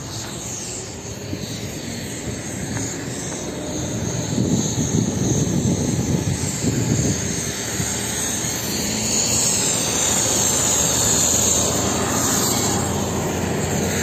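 Motor vehicle engine and road noise, a steady rumble that grows louder over the first few seconds and then holds.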